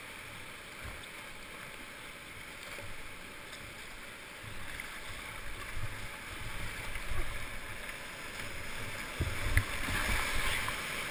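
Rushing whitewater of a creek rapid heard from a kayak through a helmet-mounted GoPro camera, growing louder about halfway through as the boat enters the rapid. Several low thuds come in the louder part, the strongest near the end.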